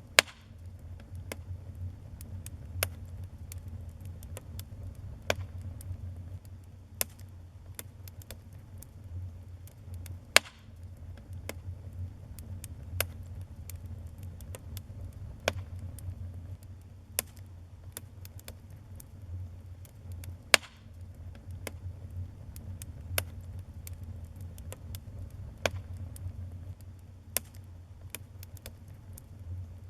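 Wood fire crackling in a fireplace: irregular sharp pops and snaps, with three louder cracks spaced about ten seconds apart, over a steady low rumble.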